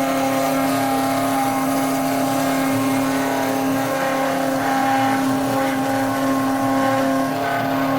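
CNC router milling a printed circuit board, its spindle running with a steady pitched tone throughout.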